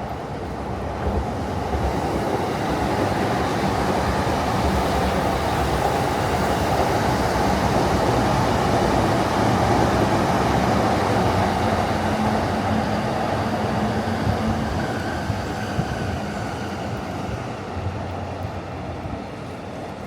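A commuter train running past, its rumble swelling to a peak about halfway and then fading, with a faint rising whine about three-quarters of the way through.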